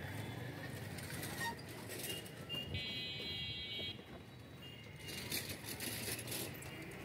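Busy street traffic ambience. About three seconds in, a high, steady signal tone sounds for about a second, and in the last two seconds there are quick high clicks and rattles.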